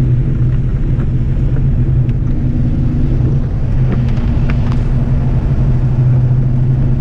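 Car engine running steadily with a low, even hum, a few light clicks near the middle.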